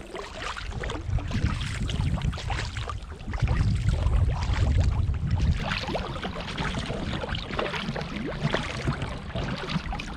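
A folding touring kayak being paddled through choppy water: double-blade paddle strokes and water splashing and lapping against the hull, with a low rumble that is heaviest from about three to five and a half seconds in.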